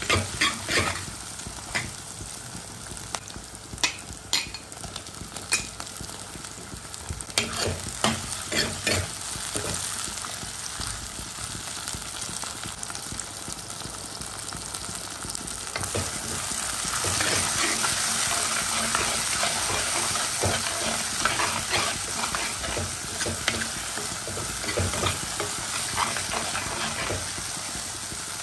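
Onions, green chillies, garlic and ginger sizzling in oil in a clay pot, with a steel ladle clinking and scraping against the pot as they are stirred. The sizzle grows louder and denser about two-thirds of the way through.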